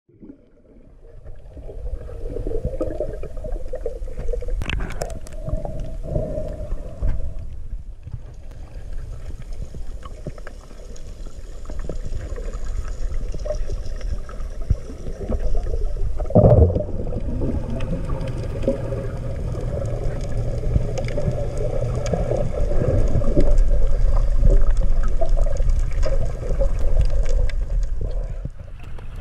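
Muffled underwater rumble and water movement picked up by a camera held under the surface, with a few knocks, the loudest about halfway through.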